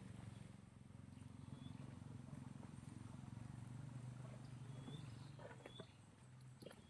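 Small engine of the soil-drilling equipment running steadily with a low, even hum. A few short high chirps and faint clicks come in over it in the second half.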